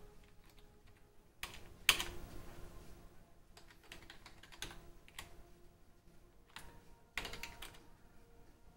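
Keys pressed on the keyboard of an old ICL desktop PC: a few scattered keystrokes, a sharper press about two seconds in, and a quick run of presses near the end.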